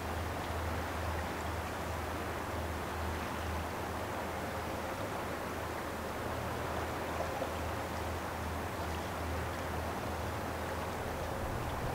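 Steady low drone of a distant lake freighter's engines, over an even hiss of river water and wind.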